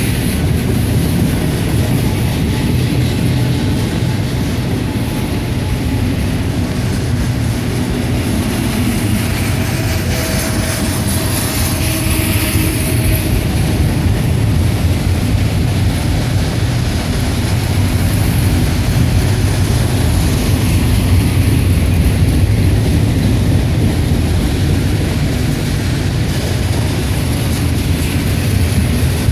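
Freight train rolling slowly past, a steady loud rumble with a low engine drone.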